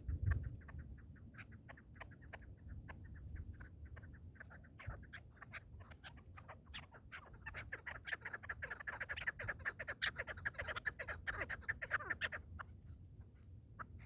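Partridge calling: a long series of short clucking notes that quickens into a dense, rapid chatter from about seven to twelve seconds in, then thins out again.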